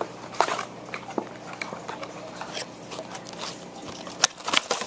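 Cardboard trading-card blaster box being worked open by hand: scattered small ticks, scrapes and crinkles of cardboard and card-pack wrappers, getting busier about four seconds in.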